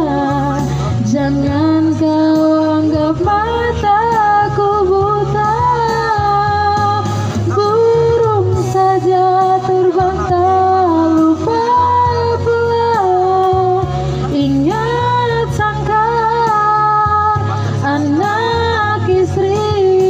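A woman singing a slow ballad into a microphone, with long held notes that waver, over a low instrumental accompaniment.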